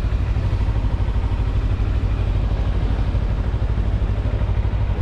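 Sport motorcycle engine running at low revs while the bike rolls slowly, a steady fast low pulsing.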